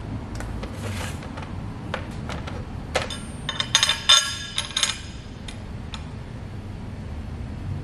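Small metal hardware clicking and clinking as it is picked up and handled on a workbench, with a dense run of ringing clinks about three and a half to five seconds in. A steady low hum runs underneath.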